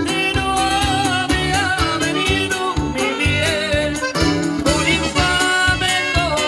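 Live band music: a wavering lead melody over a steady bass beat.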